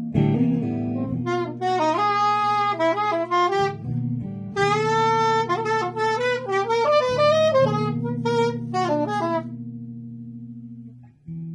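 Free-improvised duet of a soprano saxophone and a 12-string electric guitar through a small amp: the sax plays quick, leaping phrases over ringing guitar chords. About nine and a half seconds in the sax stops and the last guitar chord fades away.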